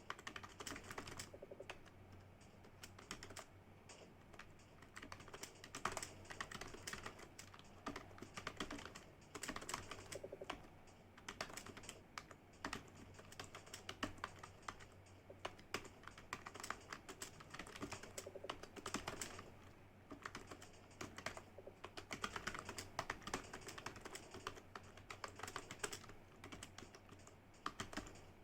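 Computer keyboard typing: a rapid, irregular run of key clicks, with a faint steady hum underneath.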